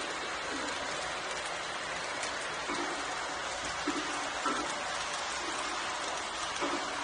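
O gauge model freight train cars rolling past on the track: a steady clattering hiss of metal wheels on rails, with a few brief louder clicks.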